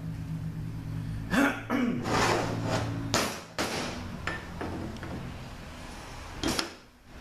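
Metal knocks and scrapes of a 62TE transmission's input shaft being worked down into its input drum, which stands on a steel bench. Several sharp clunks come between about one and a half and three and a half seconds in, and one more near the end. A low hum underneath stops about three seconds in.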